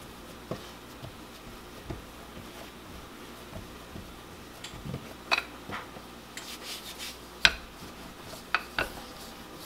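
Hands patting and pressing a ball of dumpling dough flat on a floured silicone pastry mat, a soft rubbing with faint taps. In the second half a few sharper knocks as a wooden rolling pin is taken up and rolled over the dough.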